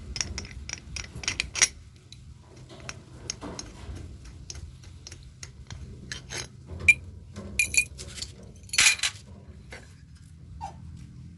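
Quick small metallic clicks and ticks from hand work on the opened valve gear of a Yanmar air-cooled diesel engine, with a few louder clinks at about seven, eight and nine seconds in.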